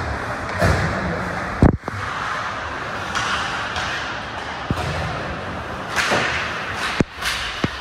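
Several sharp thuds during a team game, the loudest about two seconds in and others near the end, over a steady background din.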